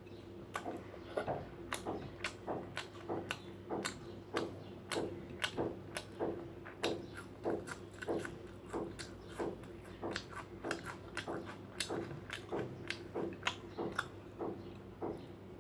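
A person chewing food close to the microphone, with wet mouth clicks and smacks coming steadily about three times a second.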